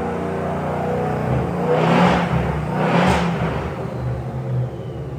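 Engine of a car with a 2.9 Whipple supercharger running, with two brief revs about two and three seconds in.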